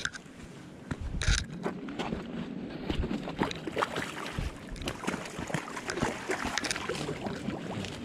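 Water sloshing and splashing, starting about a second in and going on irregularly, with many small clicks and knocks mixed in.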